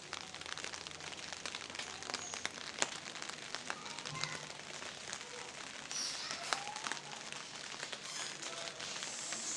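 Rain falling on a terrace garden: a steady hiss with many small, irregular drip ticks.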